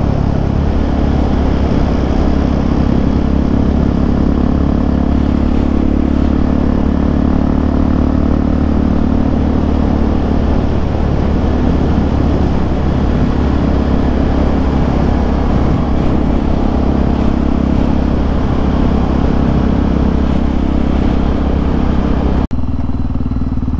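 Motorcycle engine running steadily at cruising speed with heavy wind rush over the microphone. The engine note holds a constant pitch throughout, with no revving, and the sound changes abruptly near the end.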